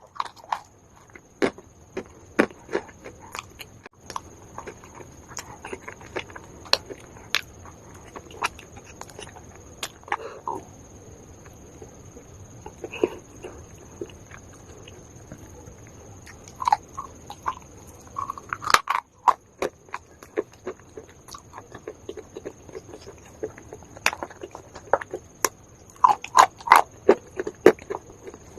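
Dry baked calaba (uko) edible clay being bitten and chewed close to the microphone: sharp, irregular crunches and cracks, coming in a quicker run near the end.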